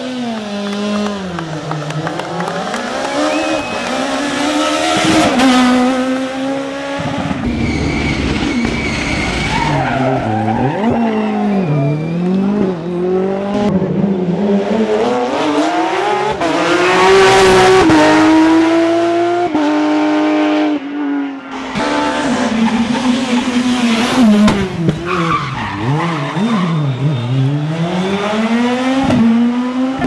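Rally cars at full attack on a tarmac stage, one after another, including a Renault Clio and a Porsche 911 (997) GT3. The engines rev hard, rising through the gears and dropping on lift-off and downshifts, with tyre squeal at times.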